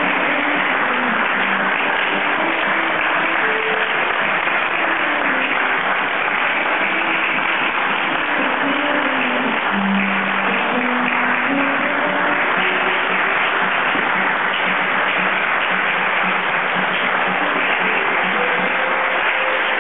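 Audience applauding steadily while an acoustic guitar plays on underneath, picking out single notes.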